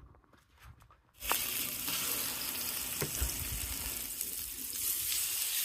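Food frying in a large paella pan over a gas burner, a steady sizzle that starts abruptly about a second in after near silence.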